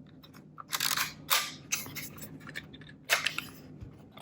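Batteries being fitted into the battery compartment of a plastic Kodak Instamatic 100 camera: a few short scrapes and clicks of the batteries and plastic parts, the strongest about a second in and again about three seconds in.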